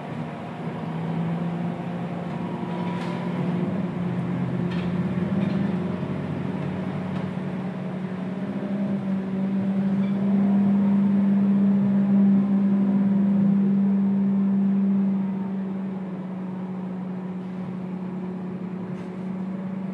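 Scania K230UB bus's five-cylinder diesel engine and drivetrain, heard from inside the passenger cabin with the bus under way: a steady low hum that rises in pitch about a second in and again around eight seconds in, is loudest in the middle, then eases off around fifteen seconds.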